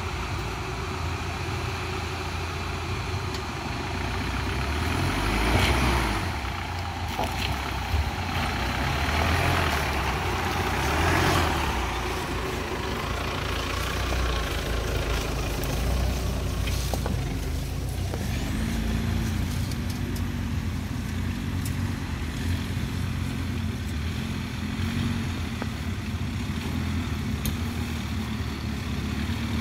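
Mahindra Thar jeep engines running in low gear as the vehicles crawl up a rocky trail one after another. The engine sound swells a few times in the first half as throttle is given over the rocks and one jeep passes close by, then settles to a steadier note.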